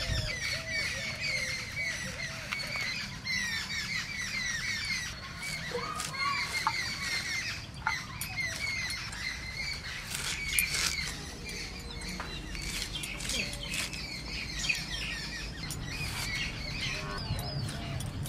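Birds chirping and calling over and over in quick short notes, with scattered sharp clicks of pumpkin flowers being sliced against the blade of a boti.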